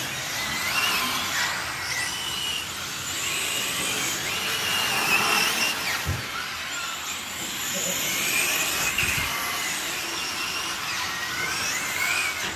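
Electric radio-controlled GT cars racing, their motors whining high and shifting up and down in pitch as they accelerate and brake through the corners, several at once.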